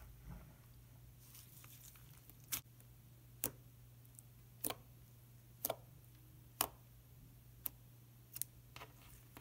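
Fingers pressing and poking into a flat disc of slime, giving about eight sharp little pops and clicks, roughly one a second, starting about two and a half seconds in.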